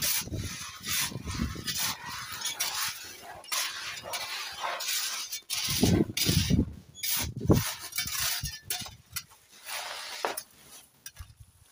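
Loose white gravel being scooped with a mason's trowel and spread by hand, the stones clattering and clinking against each other and the steel blade in repeated rattles, with a couple of duller knocks a little past halfway.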